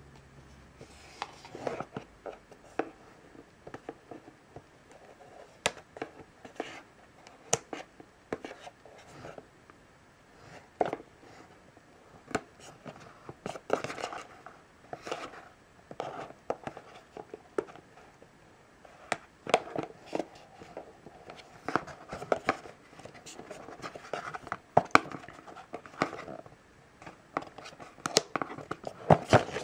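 Cardboard product packaging handled and pried open by hand: irregular scrapes, rubs and sharp clicks of card sliding against card, busier near the end.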